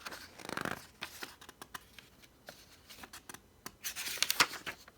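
Paper rustling and rubbing as a picture book's pages are handled and turned: two swishes, one near the start and a stronger one about four seconds in, among light clicks and taps.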